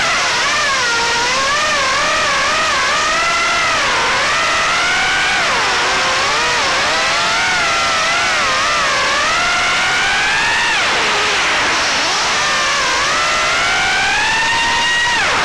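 Armattan Tadpole 3-inch FPV quadcopter's 1105 5500kV brushless motors and three-blade props whining, the pitch rising and falling constantly with throttle, with a deep drop about eleven seconds in before climbing again.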